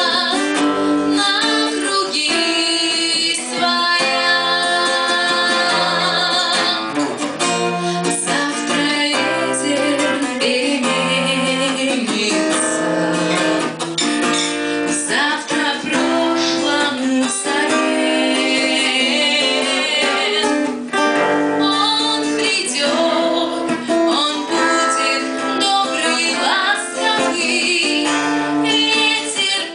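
Music: a song with a woman singing over strummed acoustic guitar.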